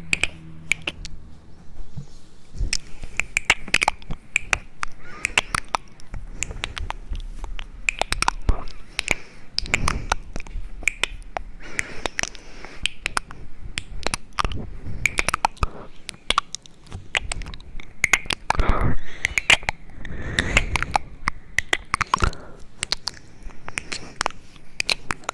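Rapid, irregular sharp clicks and taps close to the microphone, with a few brief soft rustling passages.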